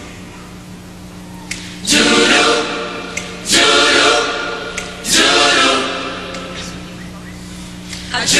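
Large mixed choir singing loud chords in four separate entries, each starting suddenly and fading away, with a steady low hum underneath.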